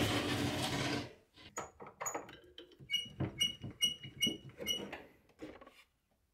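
Workshop handling at a router table. A steady noise cuts off about a second in, followed by scattered knocks and taps and a run of about five short, high, ringing clicks, evenly spaced.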